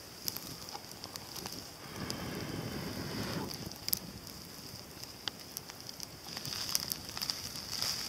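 Wood campfire crackling with scattered sharp pops under a cooking pot, and a steady hiss that grows louder near the end. A brief louder whooshing sound comes about two seconds in.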